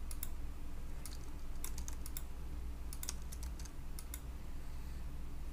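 Computer keyboard typing: scattered, irregular key clicks over a low steady hum.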